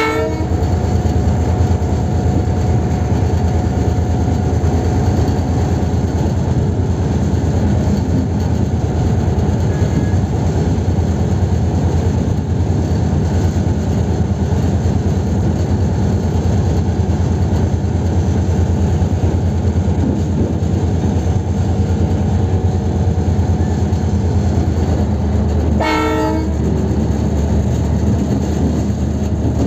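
Diesel locomotive engine running steadily with a low throb as the train rolls slowly along the track. There is one short blast of the locomotive horn near the end.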